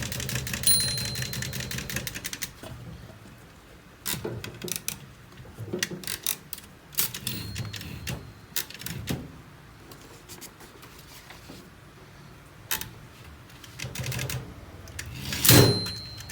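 Olivetti typewriter being worked. For the first couple of seconds there is a fast run of clicks with a bell ding, then separate key strikes and clunks. The bell rings again about seven seconds in, and again with the loudest clunk near the end.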